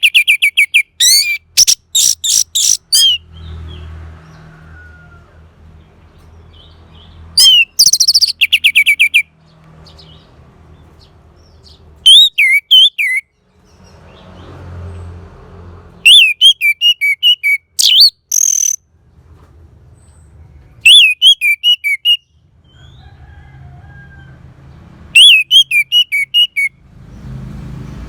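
Orange-headed thrush singing: loud phrases of rapid, repeated high whistled notes, each lasting a second or two, broken by pauses of a few seconds. A faint low rumble fills the gaps between phrases.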